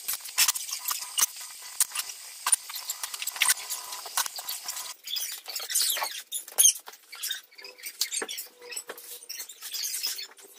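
Brooms sweeping a hard tiled floor: scratchy bristle strokes over and over, with many sharp clicks and a few louder knocks as chairs are carried and set down.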